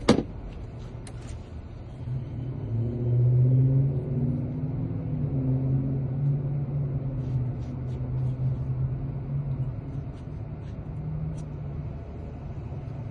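A motor vehicle engine running close by: a low hum that swells about three seconds in and fades out around ten seconds. A sharp click comes right at the start, and a few light clicks follow later.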